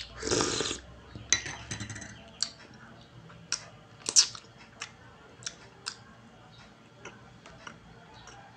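A loud slurp from a spoon held to the lips, then mouth sounds of chewing soft bread: scattered sharp wet clicks and smacks, roughly one every half second to a second, the loudest about four seconds in.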